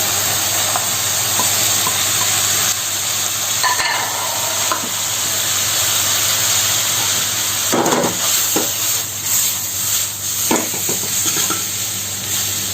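Boiled noodles stir-fried with chicken, prawns and vegetables in a hot pan: a steady sizzle as they are tossed and stirred, with a few sharp knocks of the utensil against the pan, clearest about eight and ten seconds in.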